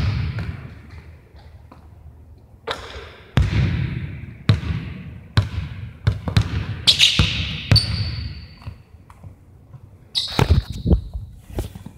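Basketball bouncing on a gym floor: a dozen or so irregularly spaced hits, each echoing through the large hall. There are short high squeaks about seven seconds in and again near the end.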